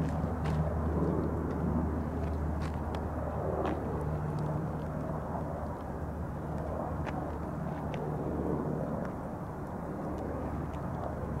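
A steady low drone of a distant engine, with a few faint ticks over it.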